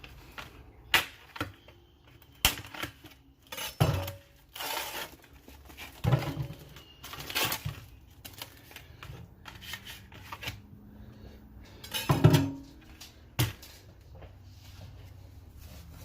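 Kitchen handling sounds: scattered knocks, clinks and short rustles as dishes and utensils are handled, with two louder knocks about twelve and thirteen seconds in.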